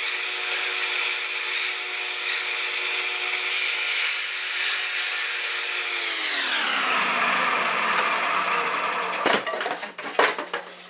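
Bowl gouge cutting the inside of a spinning yellow birch (merisier) bowl on a wood lathe, a steady shearing of wood over the lathe's running tones. About six seconds in the cutting stops and the lathe's pitch falls as it slows down. A few sharp knocks follow near the end.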